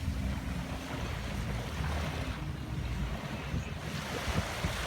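Ocean waves washing on the shore, with wind rumbling on the microphone.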